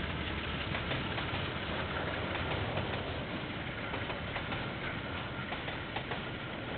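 KiwiRail diesel locomotive running with a steady low rumble that slowly eases off, with a few light clicks, heard through a security camera's narrow-range microphone.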